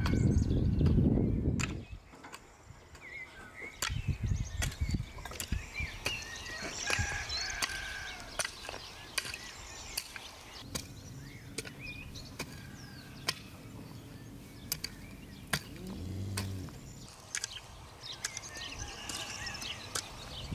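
Garden hoe chopping into dry, clumpy soil between seedlings: sharp, irregular strikes, with small birds chirping throughout and a low rumble in the first two seconds.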